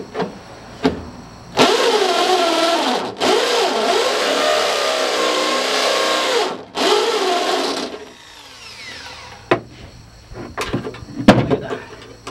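Corded electric drill boring into the sheet-steel door pillar of a 1953 Ford F100 cab for the door popper. It runs for about six seconds, easing off briefly twice, its pitch wavering under load, then spins down. A few sharp metal knocks follow near the end.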